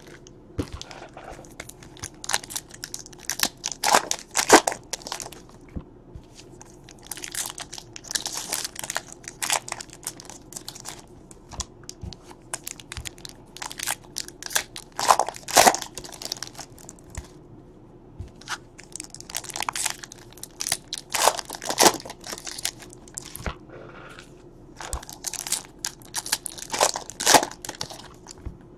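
Wrappers of baseball card packs crinkling and tearing as they are ripped open by hand, in short crackly spells every few seconds, one pack after another.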